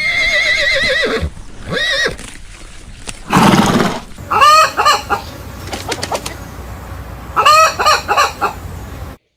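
Chickens calling: a long wavering call at the start, then groups of short, clipped clucking calls, with a brief noisy burst between them. The sound cuts off suddenly just before the end.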